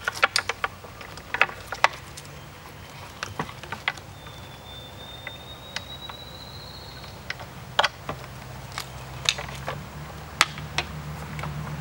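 Scattered clicks and knocks of hands working a fiber splice closure and its bungee straps on top of a metal cable spool. A low vehicle engine hum builds over the last few seconds.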